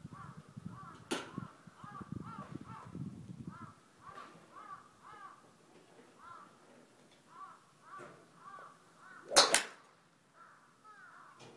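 A golf club strikes a ball off a driving-range mat with one sharp crack about nine and a half seconds in, the loudest sound. A fainter crack comes about a second in. Behind it, a bird calls over and over in short repeated calls.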